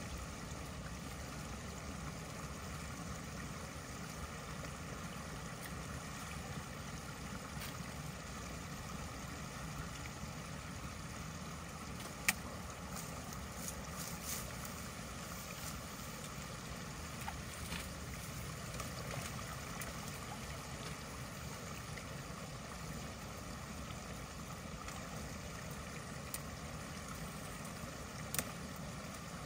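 Backed-up creek water rushing steadily through a culvert as a beaver dam blocking it is cleared. A few sharp clicks or knocks, one about twelve seconds in and a couple near the end.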